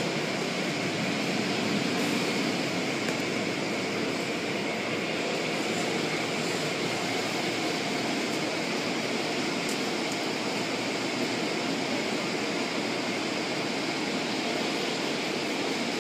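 Automatic tunnel car wash heard from inside the car: water spray and spinning cloth and foam brushes washing over the car body and windows, making a steady noise.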